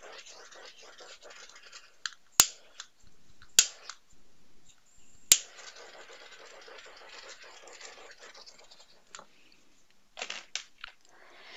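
Small handheld torch hissing as its flame is passed over wet acrylic paint to pop air bubbles. Three sharp clicks, about a second or two apart, come around the middle as it is relit, and the hiss then runs again for a few seconds. A few short rustles come near the end.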